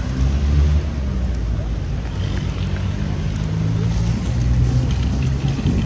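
A heavy motor drones steadily with a deep, low hum.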